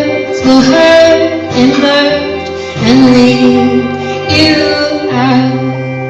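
Live indie-folk song ending: a woman's voice holding long, wordless notes over strummed chords, the last chord dying away near the end.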